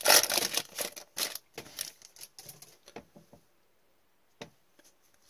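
Foil trading-card pack wrapper crinkling for about a second, then scattered light clicks and taps of cards being handled. The taps thin out and stop about three and a half seconds in, with one last sharp tap near the end.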